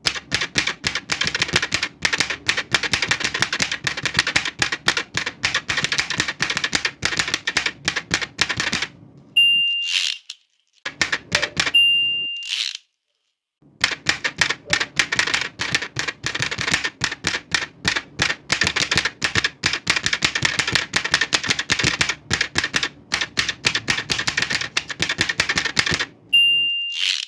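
Old manual typewriter being typed on fast, a rapid run of key strikes. About nine seconds in, the end-of-line bell rings and the carriage is returned, with another bell and return a few seconds later before the typing resumes. A final bell and carriage return come near the end.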